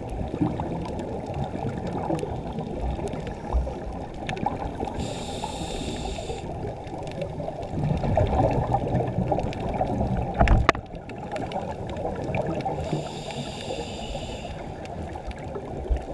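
Scuba diver breathing through a regulator underwater: exhaled air bubbles gurgle continuously, broken by two hissing inhales about five and thirteen seconds in, and one sharp knock about ten and a half seconds in.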